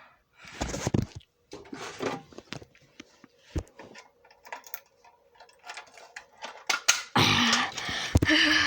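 Simplex manual fire alarm pull station being handled and its handle pulled. Plastic and metal clicks and knocks, with a sharp knock about three and a half seconds in and a longer rustling noise near the end.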